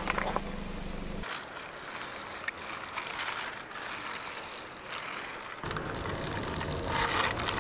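Light irregular clicking and ratcheting of a toy police car's wheels and gears as it is pushed along gravelly asphalt by hand. A low steady hum comes in about two-thirds of the way through.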